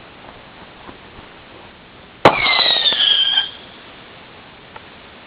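Screech owl firework going off: a sharp pop about two seconds in, then a loud whistling screech that falls slightly in pitch for just over a second and stops.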